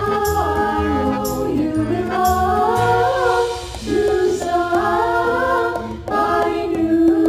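Music: a song with sung vocals over a steady bass line.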